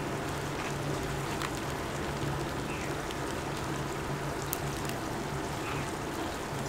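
Hot oil in a large kadai sizzling and bubbling around frying tomato pieces, a steady crackling hiss, with a steady low hum underneath.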